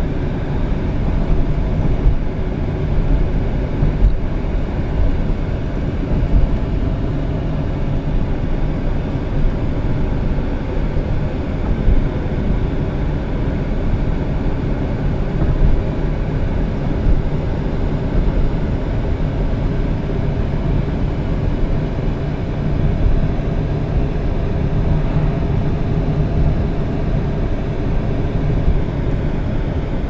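Steady low rumble of a car's engine and tyres, heard from inside the cabin while driving.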